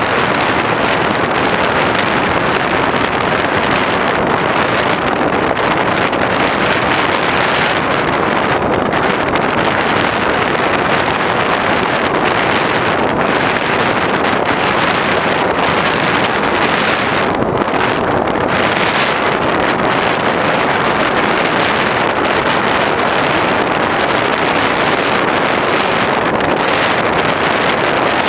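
Steady loud rush of airflow and motor noise picked up by a GoPro riding on an X8 FPV plane in flight, with a thin high-pitched whine running under it.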